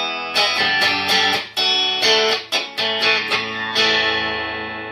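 Electric guitar played clean, without a pedal: a short phrase of picked notes and chords ending on a chord left to ring and slowly fade. The guitar's bass contour knob is turned fully off.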